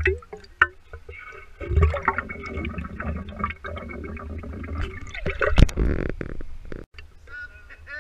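Whiskey gurgling and sloshing inside the bottle for several seconds as it is tipped up and drunk from, with clicks and a sharp knock from the bottle being handled near the end.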